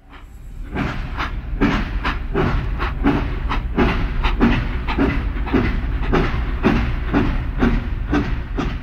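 Express train passing at speed, its wheels clicking over rail joints about twice a second over a steady low rumble. The sound fades in over the first second.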